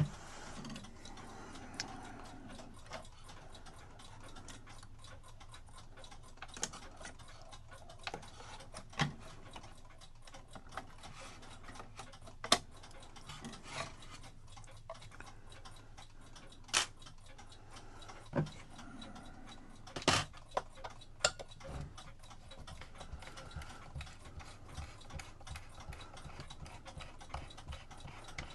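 Scattered light clicks and taps of small clock parts and tools being handled while a cuckoo clock is taken apart, coming at irregular intervals a second or several apart.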